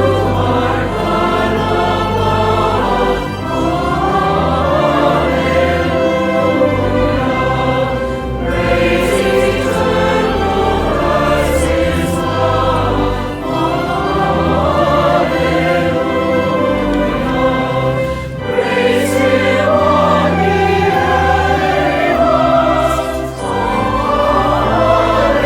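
Voices singing a hymn together with instrumental accompaniment that holds a steady low bass. It goes in phrases of about five seconds, each ending in a brief dip.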